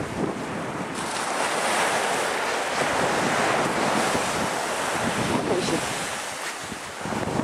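Sea surf washing up on a sandy beach, with wind rushing over the microphone. The wash swells about a second in and eases off near the end.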